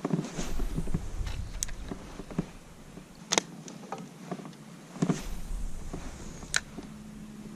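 Handling sounds in a kayak: rustling and rumbling movement with sharp knocks and clicks against the hull, in two louder spells, the second about five seconds in.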